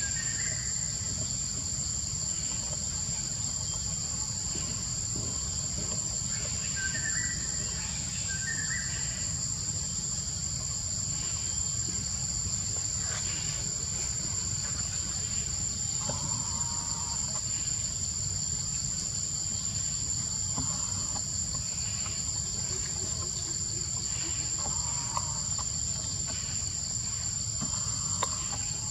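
A steady, high-pitched chorus of insects, unbroken throughout, over a low steady rumble, with a few faint short chirps now and then.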